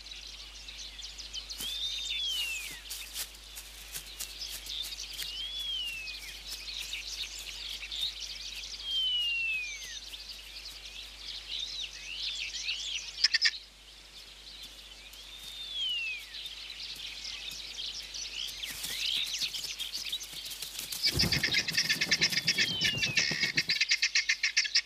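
Birds calling: arching whistled calls that rise and then fall, repeated every few seconds over scattered chirps. About 21 seconds in, a loud, fast rattling call starts and is the loudest sound.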